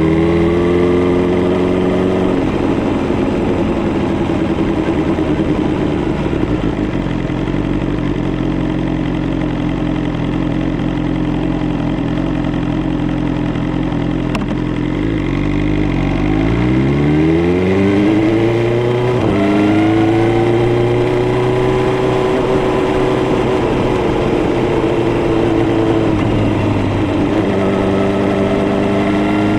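BMW S1000R's inline-four engine under way: running at a steady pitch for long stretches, easing off about two seconds in, then revving up hard a little past the middle with a gear change before settling to a steady cruise, and picking up again near the end.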